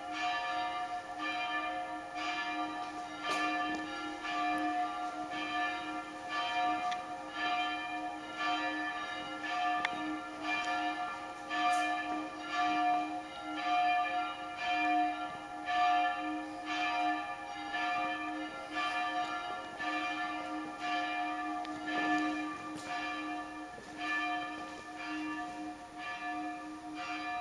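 Church bells ringing, struck over and over in quick, steady succession, their tones ringing on under each new stroke.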